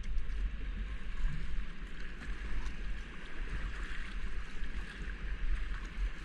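River water rushing and splashing around a whitewater kayak's hull, a steady hiss with a low rumble underneath and small splashes from the paddle strokes.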